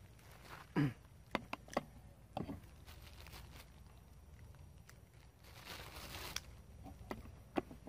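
Faint scattered clicks and small crunches of a long-tailed macaque handling and shelling peanuts, with a brief rustle about six seconds in.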